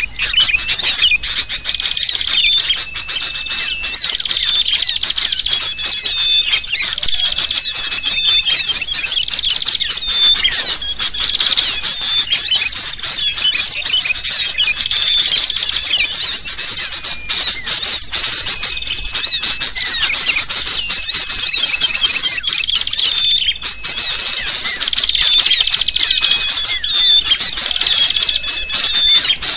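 Bird-lure recording of sooty-headed bulbuls calling noisily and agitatedly, mixed with a dense chatter of small birds: many overlapping chirps and quick notes, with short whistles repeated every second or two.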